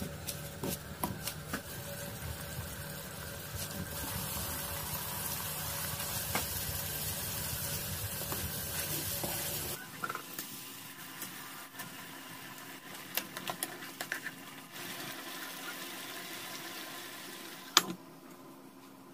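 Liquid sizzling and bubbling in a hot pot with a steady hiss that cuts off suddenly about halfway through. Quieter bubbling with a few light clicks follows, and a metal lid clanks onto the pot near the end.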